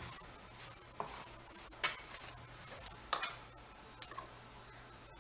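Hand rubbing and mixing dry semolina and gram flour in a stainless steel bowl: gritty rustling in short strokes. A few sharp steel-on-steel clinks come from a small steel bowl against the mixing bowl, and the sound dies down after about three and a half seconds.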